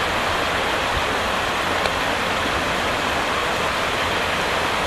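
Steady rush of muddy landslide runoff water flowing across a debris-strewn road.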